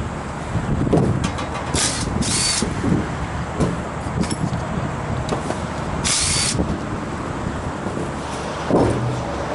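Power drill-driver run in three short bursts, backing screws out of the compressor unit's panels, with light clicks over a steady low background noise.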